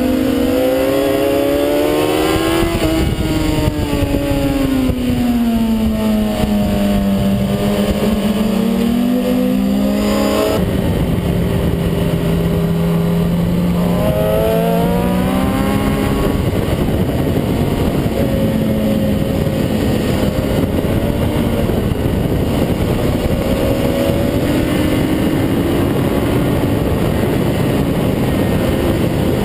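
Sport motorcycle engine at track speed, heard from onboard under heavy wind rush: the revs climb, then fall away over several seconds and hold steady. About ten seconds in, the sound cuts abruptly to another onboard recording of a motorcycle engine, revs rising and falling under the same wind noise.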